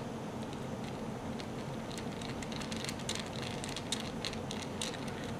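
A small Phillips screwdriver turning tiny screws out of a Walkera V120D02 micro helicopter's frame: faint, scattered light clicks and scrapes, thickest in the second half, over a steady low room hum.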